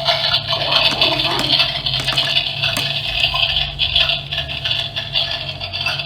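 Steady water-like rushing hiss over a low, even hum, unbroken throughout: a toy kitchen set's sound effect, with a small motor running.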